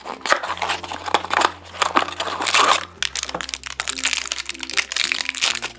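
Foil wrapper crinkling and tearing as it is pulled open by hand, a dense run of irregular crackles.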